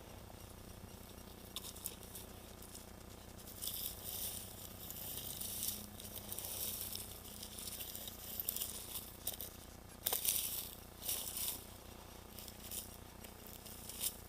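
Soft, intermittent rustling and crunching from someone moving about a field, in irregular bursts with a few small clicks.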